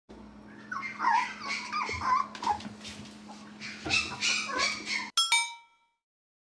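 Toy poodles whining and whimpering in many short, high-pitched, wavering cries. About five seconds in, a bright chime rings once and fades, and then all goes silent.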